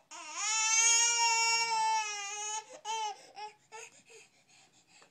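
Baby crying: one long, high wail lasting about two and a half seconds, then a couple of short sobs that trail off.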